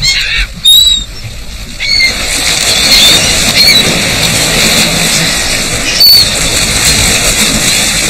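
Water surging and splashing as a group of bottlenose dolphins rushes onto a mudbank, driving a shoal of fish up out of the water in strand feeding. Gulls call sharply overhead. A few calls come at the start, and the splashing breaks in about two seconds in and carries on, with more calls over it.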